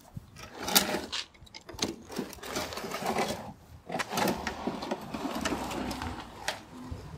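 Push lawn drop spreader rattling as it is wheeled along, a busy, uneven run of clicks and knocks.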